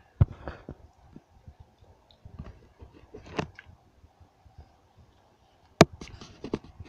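Handling noises of small plastic toys being moved about on a tabletop: a few scattered clicks and knocks, the sharpest about six seconds in.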